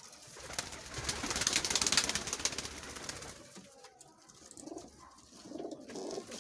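Domestic pigeons cooing in their loft, their low rolling coos coming in the second half. In the first half a louder rustling, scuffling noise covers them.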